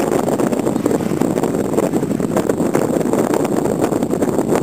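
Off-road 4x4 on oversized tyres driving over loose gravel, its engine running under load, with wind buffeting the microphone.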